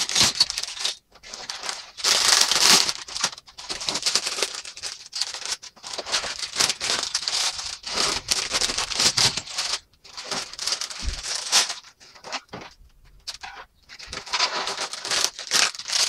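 Clear plastic bags of LEGO pieces crinkling as they are handled and set down, in irregular bursts with short pauses.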